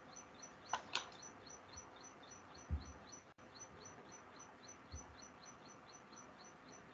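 Faint, rapid chirping of a small bird, short high chirps repeated evenly about four times a second, heard over a video-call line, with a few soft clicks and thumps.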